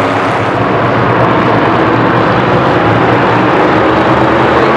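Field of dirt-track stock cars running together on the oval, a loud steady engine drone.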